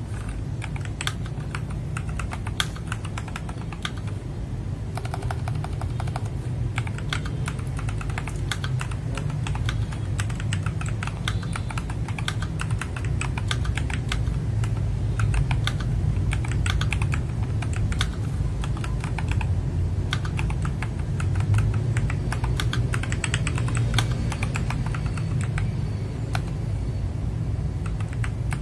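Typing test on an FL-Esports MK870 mechanical keyboard fitted with Kailh Box Brown switches: a continuous, irregular run of key clicks, over a steady low hum.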